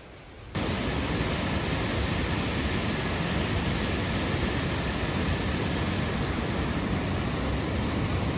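Rushing water of a mountain river, a steady loud rush that cuts in suddenly about half a second in.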